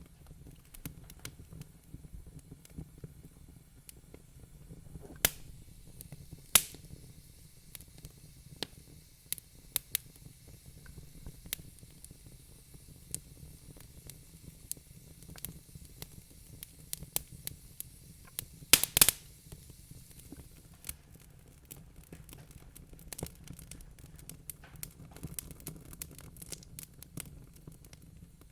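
Wood fire crackling in a fireplace: scattered sharp pops and snaps over a low steady rumble, with a few louder pops and the loudest cluster of snaps about two-thirds of the way through.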